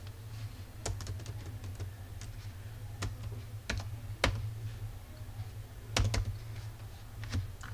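Typing on a computer keyboard: irregular keystrokes, a few of them louder, over a steady low hum.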